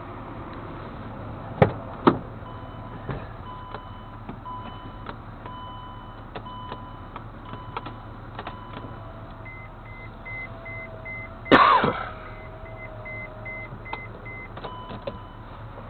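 Vehicle warning chime beeping slowly and evenly, a little more than once a second, after two sharp clicks. Partway through, a faster, higher beeping takes over, about three beeps a second, and a loud thump comes about three-quarters of the way in.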